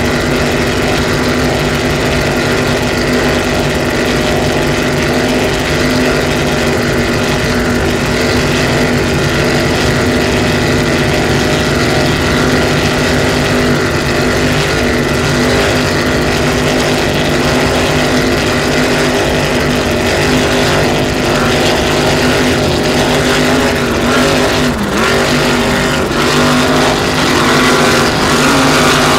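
Engines running at a steady, loud drone made of several steady tones, with a brief dip in pitch near the end.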